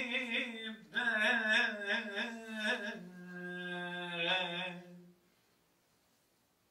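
Solo male voice chanting unaccompanied in a slow, ornamented line of held, gliding notes with vibrato, stopping about five seconds in.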